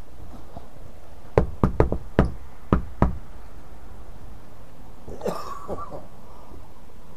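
A fist knocking on a house's front door, six sharp raps in two uneven groups.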